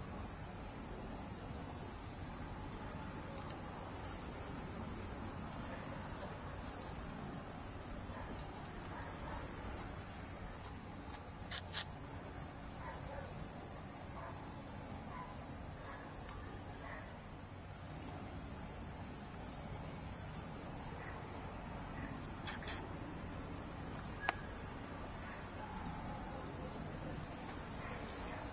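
Night-time chorus of crickets: a steady, continuous high-pitched chirring, with a couple of faint brief clicks.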